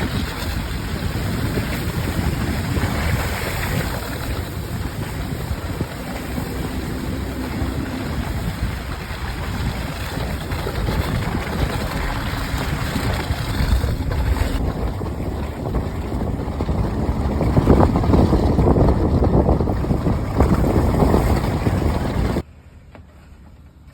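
A vehicle driving, a steady low rumble of engine and road noise with wind on the microphone, stopping abruptly near the end.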